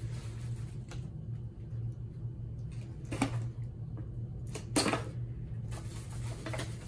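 Scissors and hands freeing a plastic toy from its cardboard packaging: light handling and rustling, with two sharp clicks about three and five seconds in, the second the louder.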